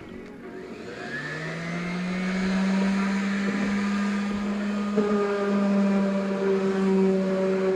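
Electric orbital sander starting up: its motor hum rises in pitch and loudness over about a second, then runs steadily, with a second, higher tone joining about five seconds in.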